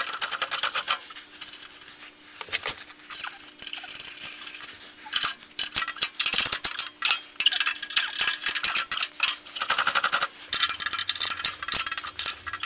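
Ratchet spanner clicking in rapid bursts with light metallic clinks as the bolts fixing the bandsaw table to its tilting trunnion are tightened.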